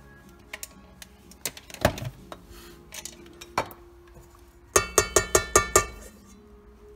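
A stick blender's metal shaft knocking against a stainless steel pot: a few scattered light knocks, then, about five seconds in, a quick run of about six ringing taps on the pot as the blender is lifted out of the soup.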